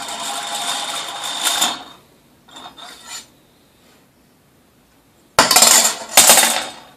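Rattling and clinking for about the first second and a half, then quiet, then a loud sneeze in two bursts about five and a half seconds in.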